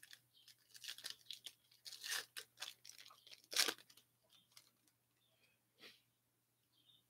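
A hockey card pack's plastic wrapper being torn open and crinkled, in a quick run of crackling rips with the loudest about three and a half seconds in, then a few light rustles.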